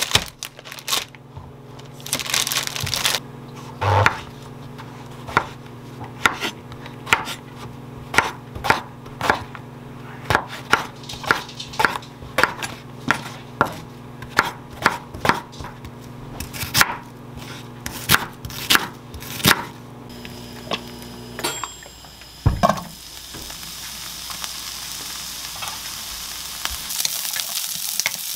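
Plastic bag crinkling as it is opened. Then a kitchen knife chopping king oyster mushrooms on a wooden cutting board, a steady run of knocks at about one and a half a second. Near the end, diced onion sizzling in olive oil in a frying pan as it is stirred.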